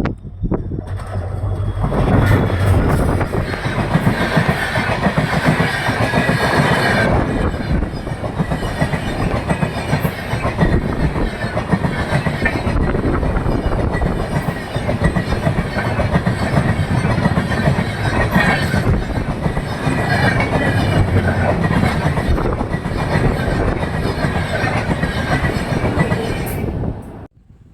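A train passing close by at speed, its wheels running loudly over the rails: the noise builds up over the first couple of seconds, holds steady, then cuts off suddenly near the end.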